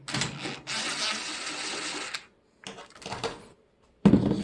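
DeWalt cordless drill running for about two seconds, backing a screw out of a microwave's steel mounting plate, followed by a few shorter sounds and a loud short burst near the end.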